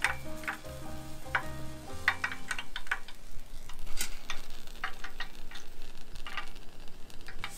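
Deep-frying oil at 180°C sizzling and crackling around a battered shrimp held in it with metal cooking chopsticks, then a few light clicks of the chopsticks on a steel wire draining rack about four seconds in. Background music with low held notes plays during the first three seconds.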